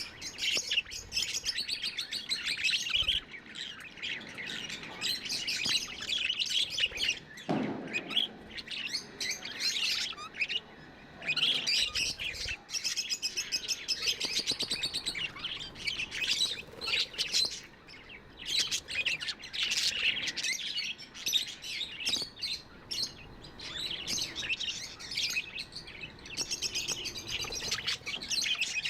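Budgerigars chirping continuously in rapid, busy chatter, with a brief lull about ten seconds in.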